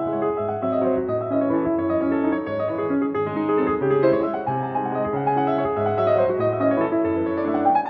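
Background solo piano music, a continuous flow of notes that turns into a rising run near the end.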